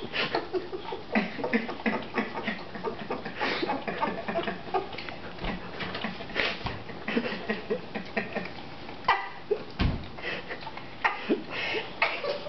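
A dog licking peanut butter off a person's skin: many quick, irregular laps, several a second.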